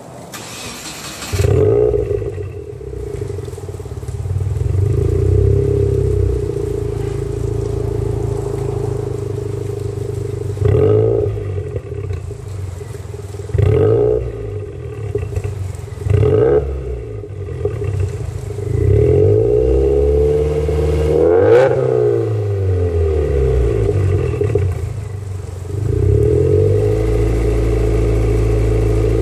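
A vehicle engine starts about a second and a half in and settles to an idle through its aftermarket-style exhaust muffler. It is blipped three times in quick short revs, then revved longer twice, the pitch rising and falling each time.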